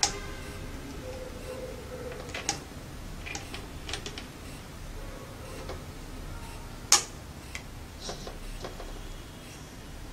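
Scattered sharp clicks and taps of test leads and alligator clips being handled and connected on a desk. The loudest click comes about seven seconds in.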